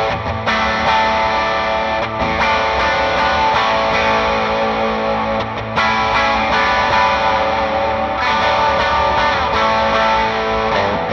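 Electric guitar played through an amp modeller with a York Audio Matchless 2x12 cabinet impulse response at the SM58 mic position, ringing out sustained overdriven chords that change every two to three seconds.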